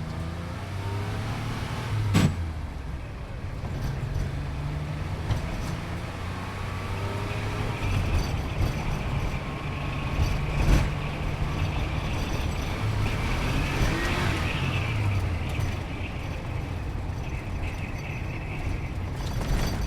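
Sports car engine heard from inside the cabin while driving, its pitch stepping up and down as it accelerates and changes gear, over steady road and tyre noise. Two sharp knocks stand out, about two seconds in and about eleven seconds in.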